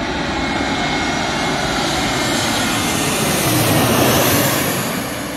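Twin-engine jet airliner passing low overhead on landing approach with its gear down, the engine noise growing louder to a peak about four seconds in, then easing off.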